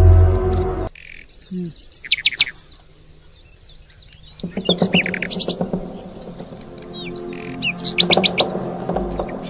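Songbirds chirping and trilling in quick runs of short high notes, several birds overlapping. A dark, loud music track cuts off about a second in.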